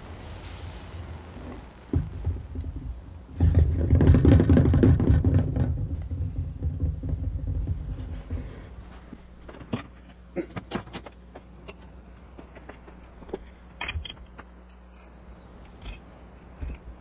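A thunk, then several seconds of loud low rumbling handling noise while the camera is moved, followed by scattered light clicks and taps of a marker and a plastic centre-finding template being set on a cast resin blank.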